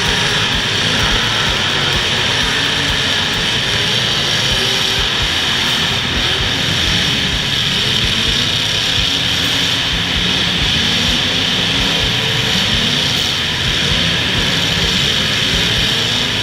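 Unmuffled engines of demolition derby cars running and revving together in a loud steady din, their pitch rising and falling.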